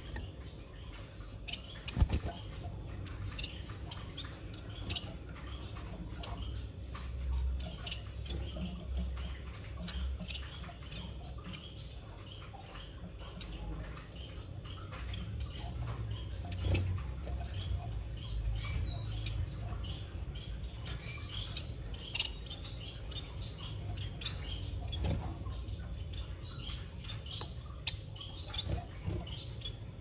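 Finch nestlings cheeping: many short, high squeaky calls in quick succession, with a single sharp knock about two seconds in.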